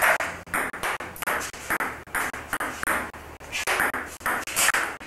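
Table tennis rally: a celluloid ping-pong ball clicking off the paddles and bouncing on the table in a quick, even back-and-forth, about three sharp pocks a second.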